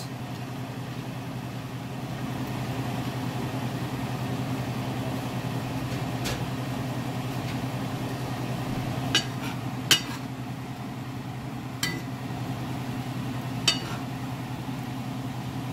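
Green beans cooking in garlic butter in a skillet, a light sizzle over a steady low hum. A utensil clinks sharply against the pan five times in the second half.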